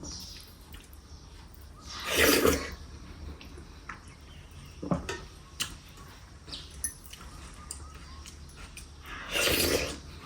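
Close-up eating sounds: two loud slurps, several seconds apart, with small mouth clicks between them.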